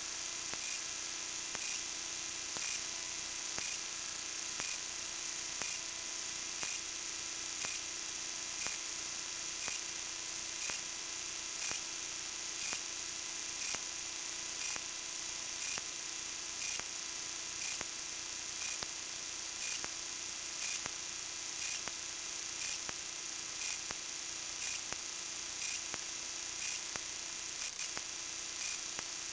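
Steady electrical hum and hiss with faint regular ticking, the kite-borne camera's own running noise picked up by its microphone.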